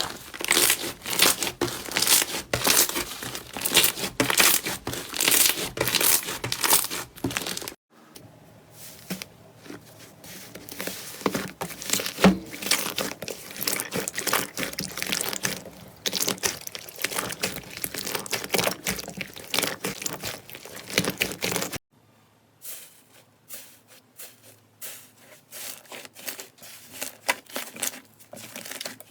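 Slime being squeezed and worked by hand, giving dense crackling, popping and crinkling. The sound changes abruptly at about 8 and 22 seconds in, and the last part is quieter, with sharper separate clicks.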